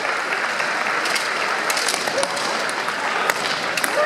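Steady gymnasium din of clapping and crowd noise, broken by scattered sharp clacks of bamboo shinai striking in kendo bouts.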